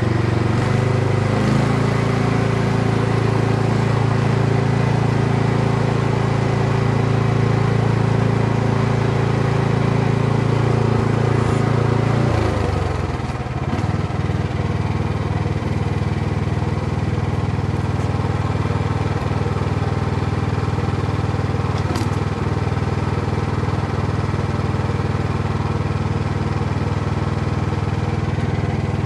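Jansen MB 500 mini dumper's engine running steadily. About twelve seconds in, its note sags briefly and it settles into a lower, thinner sound, as the machine's functions are worked during testing.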